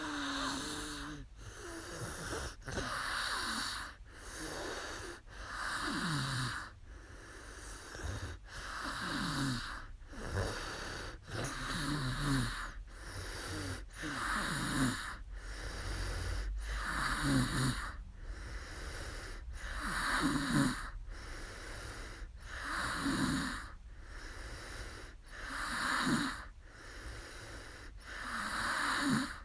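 A sleeping woman snoring steadily. Each breath is a raspy snore with a low buzzing tone, coming about every three seconds.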